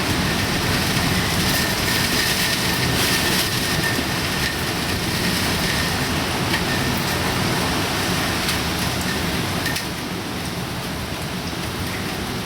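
Typhoon rain and wind: a steady, dense rushing noise that eases slightly about ten seconds in.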